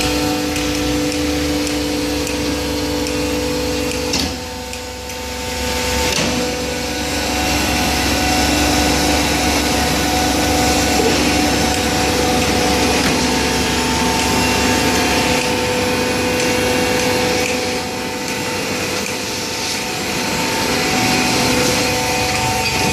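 Hydraulic baler running, its motor and hydraulic pump giving a steady, loud mechanical hum with a whining noise over it, briefly easing off about four seconds in before picking up again.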